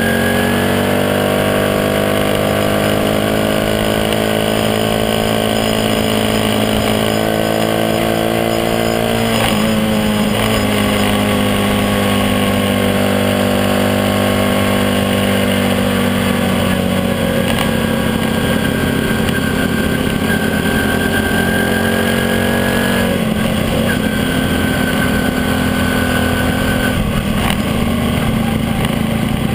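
Small motorbike engine running steadily under way, heard close up. Its note drops sharply about nine seconds in and falls again about 23 seconds in.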